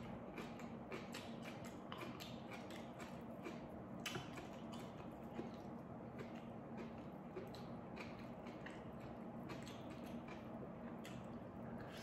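A person chewing and biting food with many short, wet mouth clicks and smacks, over a faint steady low hum.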